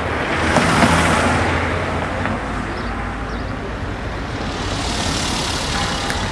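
Road vehicles passing by: one swells up and fades about a second in, a second passes near the end, over a steady low traffic rumble.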